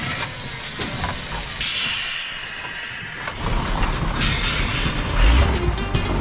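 Old flatbed crane truck creaking and rattling as it moves off, with a short hiss about a second and a half in and another about four seconds in.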